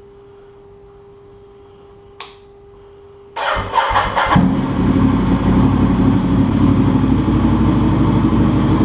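Ducati Diavel's 1198 cc Testastretta L-twin cranking over on the starter about three seconds in, catching within a second, and settling into a loud, steady idle through its freshly fitted Competition Werkes aftermarket exhaust.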